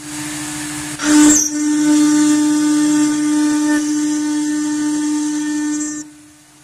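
Stone CNC router spindle cutting into a granite slab: a steady spindle whine with a high, gritty hiss from the bit grinding the stone, and a brief louder screech about a second in. The cutting noise stops suddenly about six seconds in, leaving only the spindle's steady hum.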